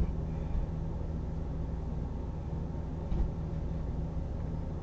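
Quiet room tone with a steady low hum; a soft knock about three seconds in.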